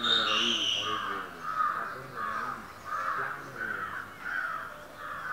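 A crow cawing over and over, about eight evenly spaced caws, with a brief higher, shriller call at the start.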